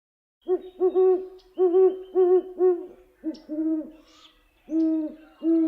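Owl hooting: a series of about a dozen short hoots in two runs, the second run slightly lower in pitch.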